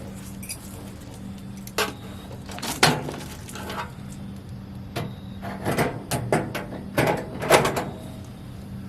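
Scattered knocks, clunks and rattles of grill panels and parts being handled and fitted, as a side piece of a Weber Genesis II gas grill is hung onto protruding mounting screws.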